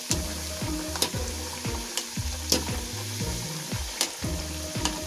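Whole potatoes deep-frying in hot oil, with a steady sizzle. A slotted metal skimmer turns them, clicking and scraping against the kadai several times.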